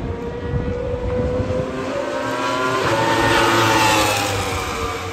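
Racing superbike engines at high revs passing at speed. The engine note builds to its loudest about three and a half seconds in, then falls in pitch and fades as they go by.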